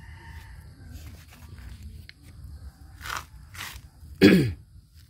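Soft crunching and rustling of a hand working the potting soil in a plastic nursery pot, with two short scraping rustles about three seconds in. Near the end comes a brief, loud call that falls sharply in pitch.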